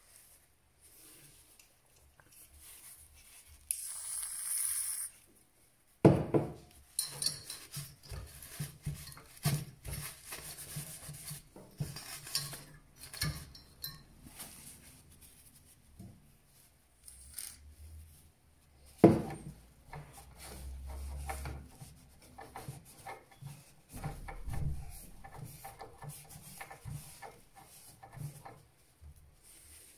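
Hands and small tools working on a desktop PC's CPU and heatsink while hardened thermal paste is cleaned off: scattered scraping, rubbing and tapping on metal and plastic. There is a short hiss about four seconds in and sharp knocks near six and nineteen seconds.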